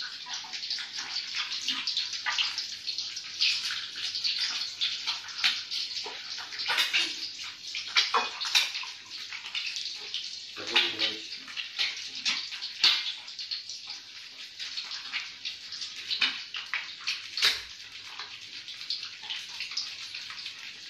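Hot cooking oil sizzling and crackling in a wok over a gas flame, with frequent sharp pops and spits of oil.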